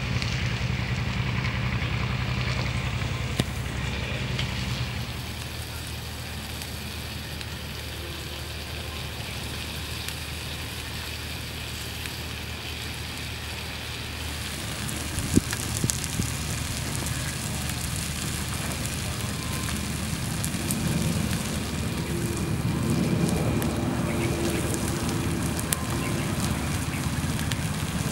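Small wood fire crackling under a stone slab, with fish sizzling on the hot stone, over a steady low hum. A couple of sharp clicks stand out, one early and one about halfway through.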